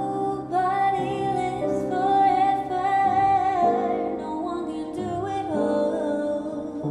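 Background music: slow, held chords with a singing voice.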